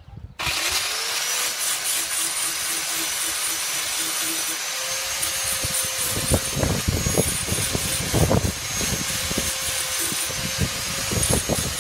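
Electric power tool switched on, its motor spinning up over about a second to a steady whine, with irregular crackling and rasping from about six seconds in.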